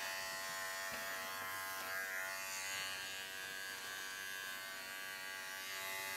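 Wahl Bravura cordless pet clipper running with a steady, even hum as it trims a Maltese's body coat.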